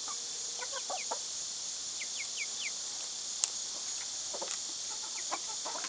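Backyard hens clucking softly in short, scattered calls, with a quick run of about four falling notes around two seconds in. A steady high insect drone runs beneath.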